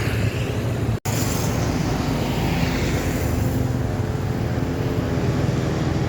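A bus engine running close by with road traffic, a steady low drone, with a split-second dropout about a second in.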